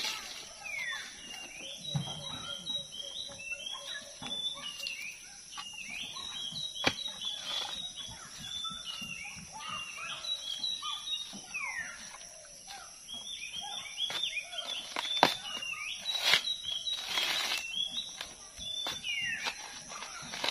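Birds chirping over and over, over a steady high insect drone. Now and then come sharp cracks, and a rough tearing noise about three-quarters of the way through, as a coconut's husk is pried apart on a husking spike.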